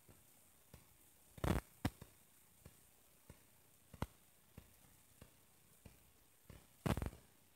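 Faint footsteps on stone paving, one about every 0.6 seconds at a steady walking pace, with two louder rubbing bumps about a second and a half in and near the end, from the hand-held camera being handled.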